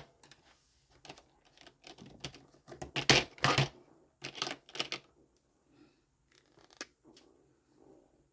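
Acrylic paint marker being handled and readied: a run of irregular sharp clicks and taps, loudest about three seconds in and fading to a few faint taps near the end.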